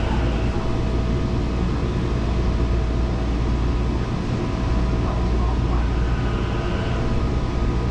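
Metro train running between stations, heard inside the passenger car: a steady low rumble with a few faint, steady whines above it.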